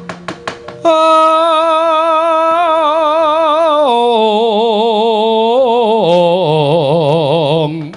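A few sharp knocks, then one long drawn-out sung line of Javanese wayang suluk with heavy, wide vibrato, stepping down in pitch about three times before it stops near the end.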